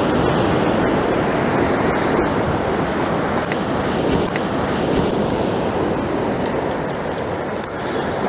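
Ocean surf breaking and washing over a rock shelf, a steady rush of waves, with a few faint clicks.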